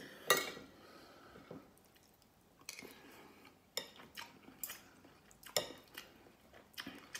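Spoon and fork clinking and scraping on a plate and in a glass bowl of soup, a dozen or so sharp separate clicks spread irregularly, with soft chewing between them.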